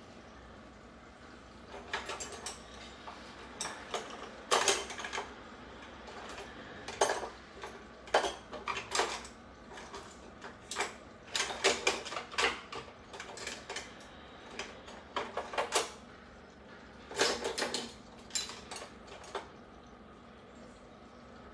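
Plates and cutlery clinking and clattering, a string of sharp knocks in irregular clusters with short pauses between them.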